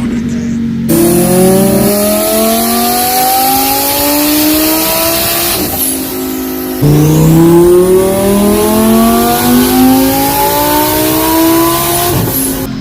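Twin-turbo Lamborghini Huracan 5.2-litre V10 revving hard under load on a dyno: two long climbs in engine speed, with a short dip about six seconds in.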